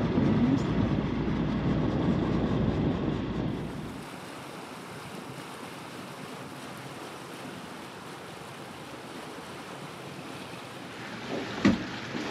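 Strong wind buffeting the microphone for the first few seconds, then a steady, quieter wash of wind and water as the sailing catamaran moves under way. A single sharp knock comes near the end.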